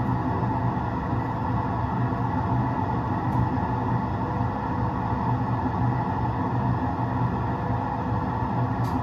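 Steady running sound of an electric train at about 100 km/h, played by a train-driving simulator: an even rumble of wheels on rail with a low hum, unchanging throughout.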